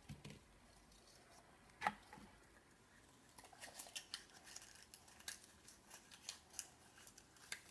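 Faint handling sounds of a surprise-egg toy and its packaging: one sharp click about two seconds in, then a run of quick small clicks and crinkles from about halfway.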